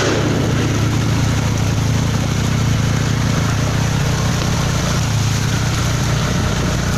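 Steady engine drone of a moving vehicle, with a constant low hum and road and wind noise over it.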